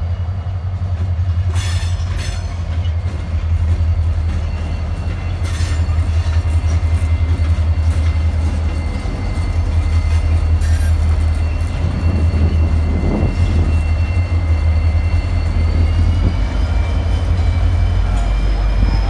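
Two CSX EMD SD40-3 diesel-electric locomotives rolling slowly past at close range, their 16-cylinder two-stroke diesels running with a steady low rumble. A thin high whine sits over it and rises slightly about two-thirds of the way in, and a few sharp clanks sound along the way.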